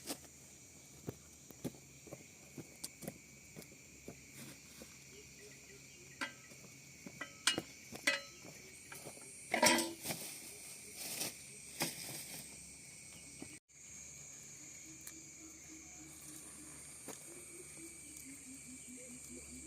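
Scattered clicks and knocks of handling work, a few louder ones near the middle, over a steady high drone of insects. The sound drops out for an instant about two-thirds through, after which only the insect drone and a faint low wavering tone remain.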